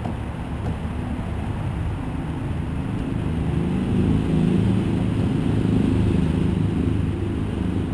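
Low engine rumble of a passing motor vehicle, swelling about four seconds in and easing off near the end.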